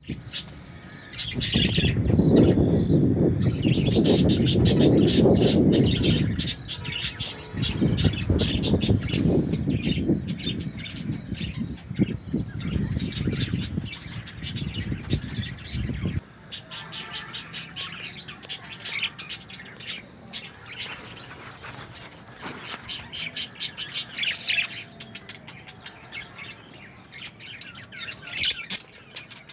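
A flock of budgerigars chattering and chirping in fast, high-pitched runs. Under the first half a loud low rumble runs along with them and stops abruptly about halfway through.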